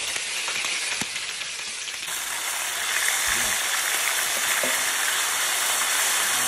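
Chicken wings frying in hot lard in a wide steel disc pan, sizzling steadily. About two to three seconds in, diced potatoes are tipped in from a metal bowl and the sizzle grows louder.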